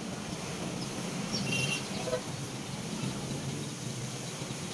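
Steady outdoor background noise with a brief bird chirp about a second and a half in.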